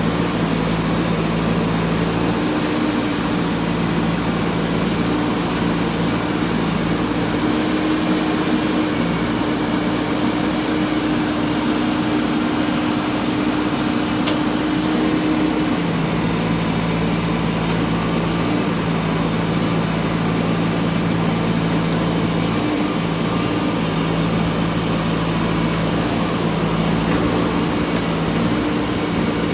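JCB 3DX backhoe loader's diesel engine running steadily while digging. Its note shifts pitch a couple of times, once a few seconds in and again about halfway through.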